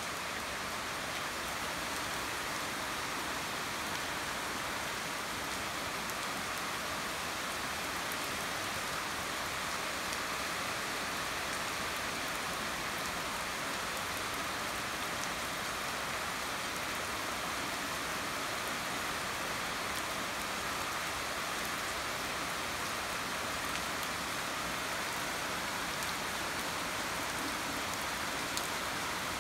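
Steady rain falling on garden trees and leaves: an even, unbroken hiss.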